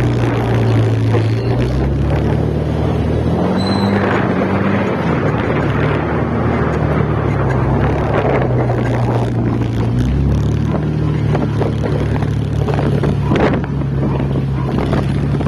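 Motorcycle engine running while riding, with wind and road noise on the microphone. The engine hum rises in pitch for a moment about three to five seconds in, and a short high beep sounds about four seconds in.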